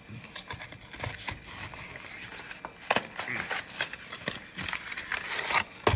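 Store-bought pie's packaging being handled and opened: irregular crinkling and rustling with scattered clicks and taps, and a couple of sharper snaps about halfway through and near the end.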